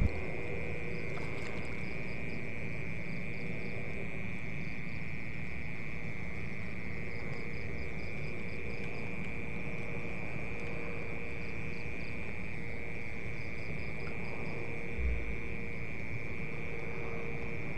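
Night insects, crickets, trilling steadily in one continuous high drone, with a higher, rapidly pulsing chirp over it and a faint low steady hum underneath. A single soft low thump comes about fifteen seconds in.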